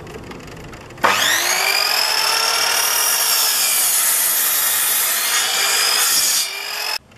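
Electric mitre saw starting up about a second in, its motor whine rising as the blade spins up, then running steadily at speed while the blade is brought down to trim the end of a pine board square. The motor sound dips slightly near the end and then cuts off suddenly.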